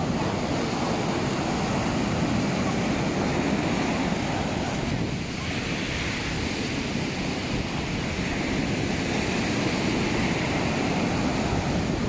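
Rough sea surf: big waves breaking and white water washing up the beach in a continuous rush of noise, with no let-up.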